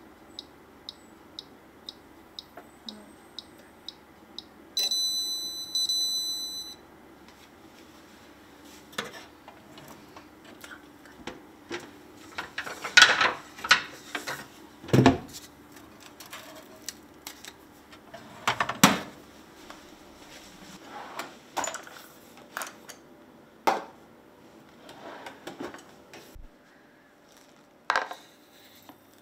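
A white countertop toaster oven's timer ticking about twice a second, then its electronic beep of about two seconds, in two parts, signalling that the toast is done. Clicks and knocks follow as the oven door is opened and the toast is taken out and set on a wooden plate.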